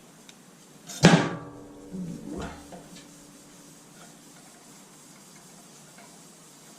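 A sharp metal clank about a second in that rings on briefly, then a lighter knock, as metal transmission parts are handled.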